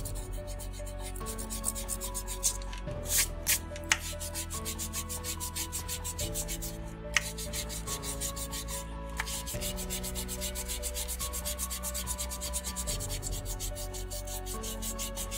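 Rubber eraser rubbing pencil lines off paper in quick back-and-forth strokes, with a few sharper scuffs, over soft background music.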